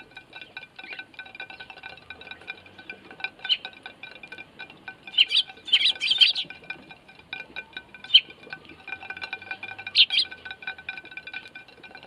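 Eurasian tree sparrows chirping at a seed feeder, with a bright cluster of chirps about five to six and a half seconds in and single chirps near eight and ten seconds. Under them runs a steady chime-like ringing.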